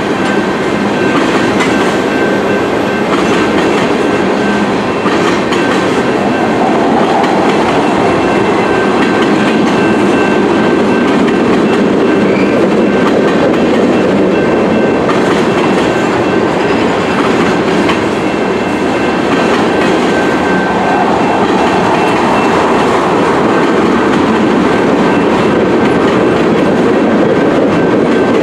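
Freight train of tank cars rolling steadily past a level crossing: a loud, even rumble of steel wheels on the rails.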